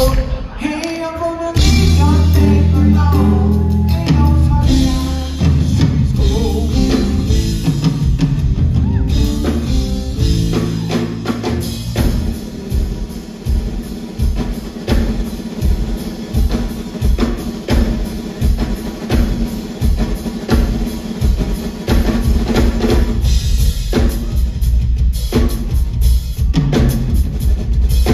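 Live drum kit solo: deep sustained bass tones and a singing voice fill the first ten seconds or so, then give way to a steady kick-drum pulse of about two beats a second, with snare and cymbals over it.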